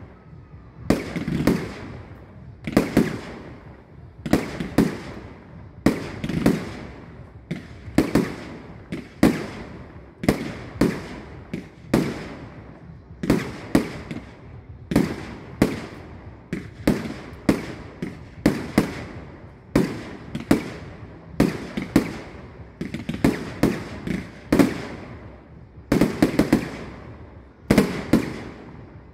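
Fireworks display: aerial fireworks bursting overhead in a steady barrage, about one sharp bang a second, some in quick pairs, each trailing off in an echo.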